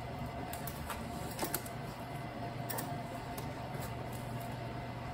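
A few light metallic clicks from a bicycle front derailleur and chain being handled during adjustment, over a steady low hum.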